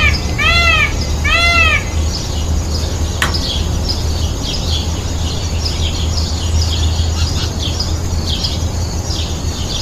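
Three short, arching animal calls in quick succession over the first two seconds, followed by many small birds chirping and twittering. A single sharp click about three seconds in, over a steady low rumble.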